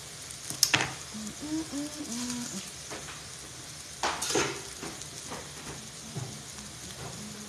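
Egg sauce (scrambled eggs with onion, tomato and pepper) sizzling steadily as it fries in a skillet. Two sharp clatters, one about a second in and one about four seconds in, are the loudest sounds.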